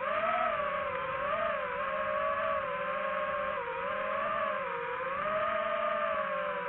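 A motor running with a steady whine whose pitch wavers slowly up and down, over a rough background noise.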